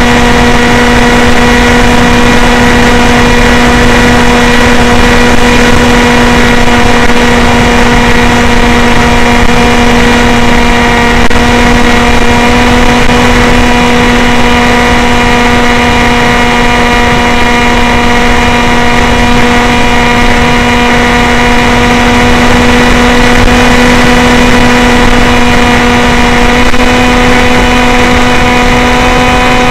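Electric motor and pusher propeller of a Sky Shadow S800 FPV flying wing, heard from the onboard camera: a loud, steady hum at nearly constant pitch over the rush of wind.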